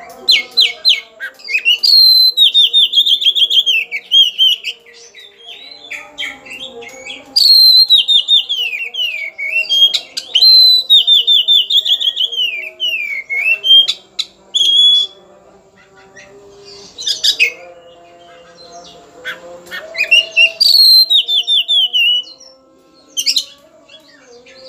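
Caged Oriental magpie-robin (kacer) singing loudly, in its agitated, challenging mood. It sings phrases of quick descending trills and whistles in bursts a few seconds long, with short pauses between them.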